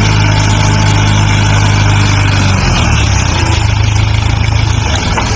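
Diesel engine of a dump truck running steadily while its hydraulic hoist tips the loaded bed to dump sand. The engine note shifts about two and a half seconds in.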